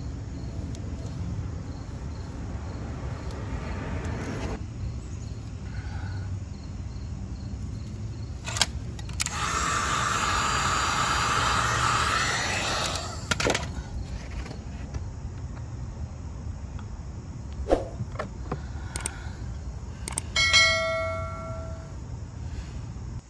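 Handheld heat gun blowing for about five seconds, starting and stopping abruptly, warming the saddlebag so the reflector's double-sided tape will stick. Near the end, a short bell-like chime.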